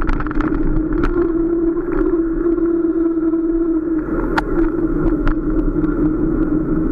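Electric bike motor running at a steady pitch while riding along, with scattered sharp clicks and rattles from the bike over the road.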